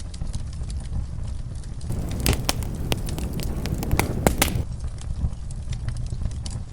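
Wood fire in a fireplace crackling over a steady low rumble, with scattered sharp pops. A denser run of louder pops and snaps comes from about two seconds in until about four and a half seconds.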